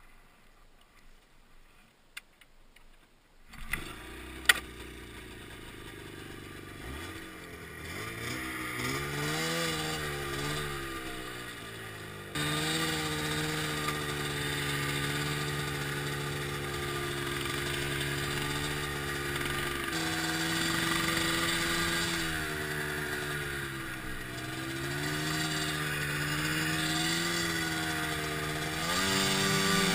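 Ski-Doo Mach 1's 583 Rotax two-stroke twin engine. A few seconds of near silence and a sharp click come first, then the engine comes in and revs up and down as the sled gets going. About twelve seconds in it jumps louder and runs on at trail speed, rising and falling with the throttle.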